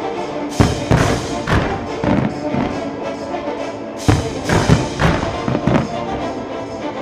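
Aerial fireworks launching and bursting in a rapid volley, a run of sharp thumps that gets heaviest about four seconds in, over loud music played for the synchronised show.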